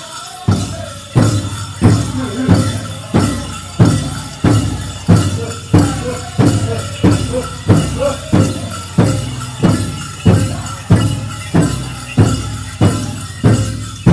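Powwow drum group singing, with a large shared drum struck in a steady even beat about three times every two seconds. The drum comes in about half a second in, after a sung line.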